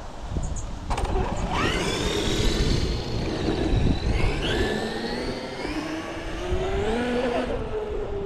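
RC car on a GPS speed run with non-belted Sledgehammer tires. Its motor whine starts about a second in and climbs in pitch as it accelerates, climbs again partway through, then drops off near the end.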